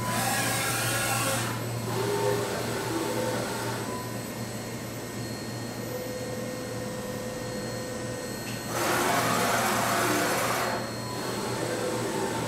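A 5-axis CNC milling machine traversing its spindle head away from the carved workpiece, with a steady low machine hum. Two loud rushing bursts of noise, the first in the opening second and a half and the second about nine seconds in, lasting about two seconds.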